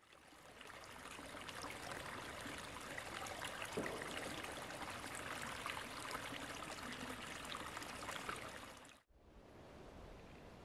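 Small forest brook trickling and babbling, fading in at the start. It cuts off suddenly about nine seconds in and gives way to a quieter outdoor background.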